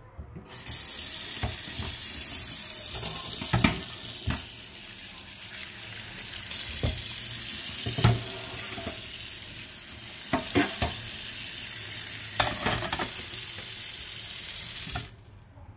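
Steady hiss of running tap water, with several sharp knocks of the metal mesh grease filter being handled; the water cuts off suddenly near the end.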